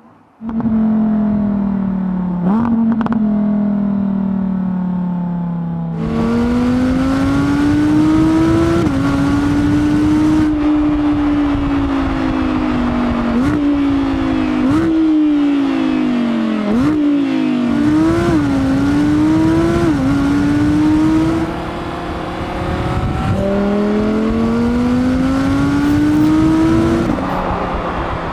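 Audi R8 V10 GT's naturally aspirated 5.2-litre V10 running hard on a track, its pitch climbing and sinking with the revs. Several sudden jumps and drops in pitch mark gear changes of its seven-speed dual-clutch gearbox.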